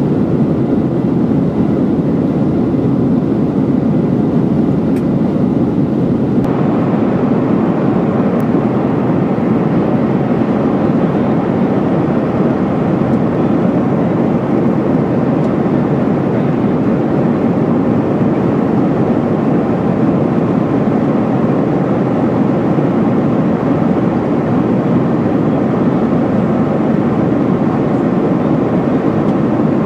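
Steady cabin roar of a Boeing 737-900ER in flight: the CFM56-7B engines and rushing airflow heard through the fuselage. The noise grows a little hissier about six seconds in.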